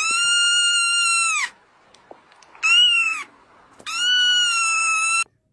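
Kitten meowing three times: two long, high-pitched, steady meows with a shorter one between them, each dropping in pitch as it ends.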